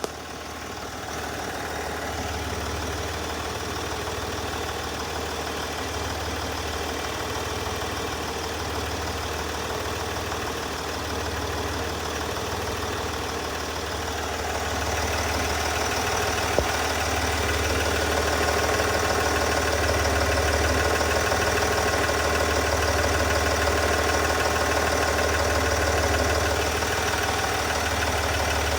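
Land Rover SDV6 V6 diesel engine idling steadily with a ticking noise, getting louder about halfway through.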